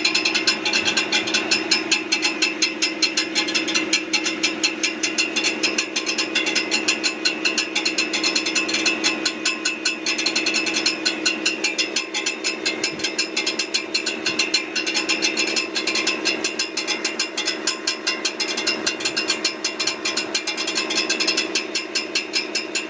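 A brand-new 2023 Ford F-150 with about 400 miles making a fast, regular clicking and clanking from near the transmission, over the steady hum of the running truck. The owner takes it for an abnormal fault in a new truck.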